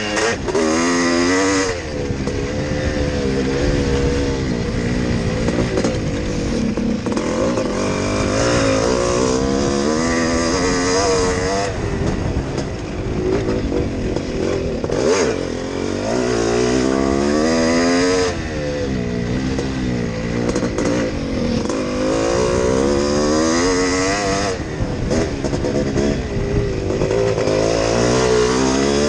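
Yamaha YZ465G two-stroke single-cylinder motocross engine at racing speed, its pitch climbing and falling over and over as the throttle is worked, with brief dips several times where the throttle closes.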